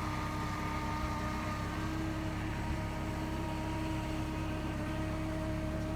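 Motor whine of a radio-controlled hydrofoil boat running across the water at a steady throttle, one held pitch with overtones over a low steady rush of noise.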